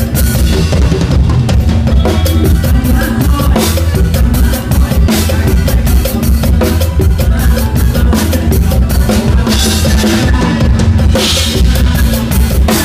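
Drum kit played hard in a live mor lam sing band: a busy kick-and-snare groove with rimshots and fills, cymbal crashes now and then, and the band's bass and instruments underneath.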